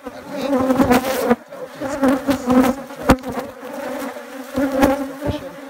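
Honeybees buzzing around an opened hive, a steady hum, with a few sharp clicks and scrapes as a metal hive tool pries at the wooden frames.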